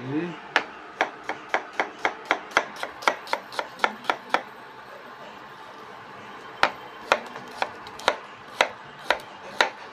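Kitchen knife chopping a red onion on a glass cutting board: quick sharp knocks of the blade on the glass, about four a second. They pause for about two seconds midway, then resume more slowly, about two a second.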